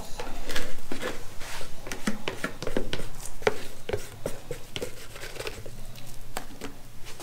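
A stir stick scraping and knocking inside a plastic mixing cup, scooping out thick, half-expanded two-part foam. It comes as a run of irregular short scrapes and taps.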